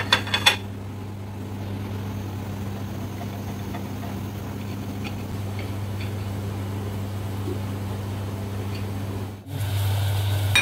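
A steady low electric hum, with a few clinks of a metal knife against a china plate at the start and faint taps as the knife trims crusts off slices of white bread. Near the end the hum grows louder, with a hiss from a gas burner heating a pot of sugar syrup.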